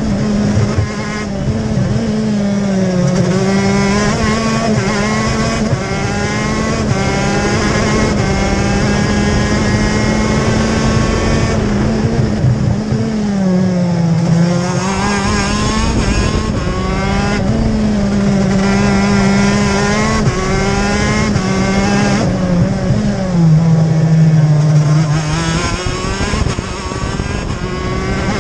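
TM K9C 125cc two-stroke shifter-kart engine running at high revs, heard from onboard the kart. The revs climb in repeated rising sweeps as it shifts up through the sequential gearbox, and drop back for corners, falling lowest about halfway through and again a few seconds before the end.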